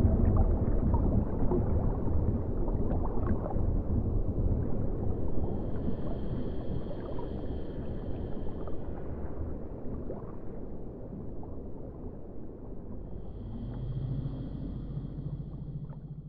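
Dark ambient soundtrack: a dense low rumbling drone that slowly fades, with a high held tone drifting in twice, midway and near the end.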